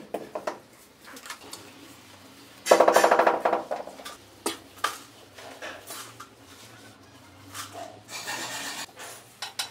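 A tool scraping and knocking in a small plastic bucket of tile mortar, with scattered clicks and two loud rapid scraping rattles, one about three seconds in and one near the end.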